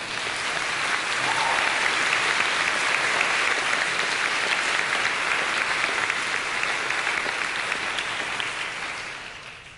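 A large audience applauding: dense clapping that swells up about a second in, holds steady, and dies away near the end.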